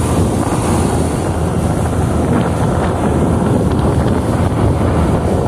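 Wind buffeting the microphone on a moving motorboat, over the steady run of the boat and the rush of its churning wake.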